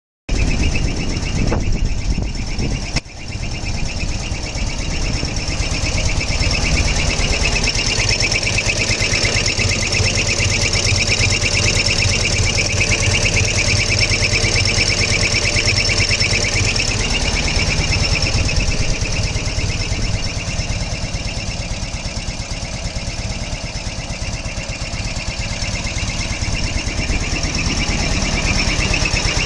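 Ural motorcycle's flat-twin engine running steadily, with a high whistle from the right cylinder over the engine's pulse and a brief dip about three seconds in.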